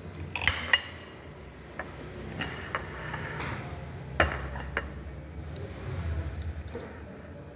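Knife and fork clinking and scraping against a ceramic plate: a few sharp, scattered clicks, the loudest about halfway through.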